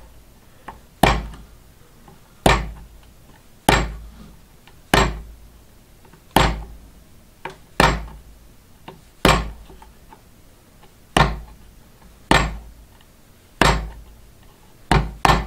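Small hammer tapping a finishing nail through pre-drilled stitch holes in leather into a wooden board, one sharp tap about every second and a quarter, to transfer the stitch-hole marks onto the leather piece beneath.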